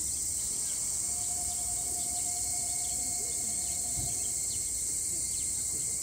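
Steady high-pitched chorus of insects in the trackside vegetation, with a faint steady tone for a few seconds in the middle.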